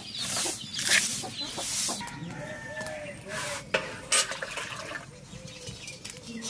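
Domestic hens clucking in short calls through the middle and latter part. In the first two seconds come crisp, crunching bursts of fresh mustard leaves being sliced on an upright floor blade, and a little past halfway two sharp knocks are heard.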